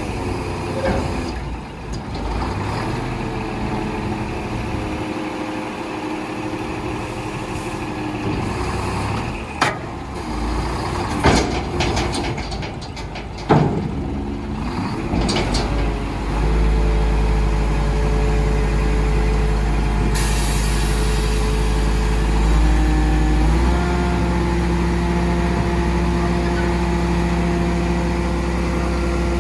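Scania P420 hooklift truck's diesel engine running, with a few short sharp air hisses about ten to fourteen seconds in. From about sixteen seconds the engine holds a steady, louder drone as it drives the hydraulics tipping the bin, and its pitch steps up about twenty-four seconds in.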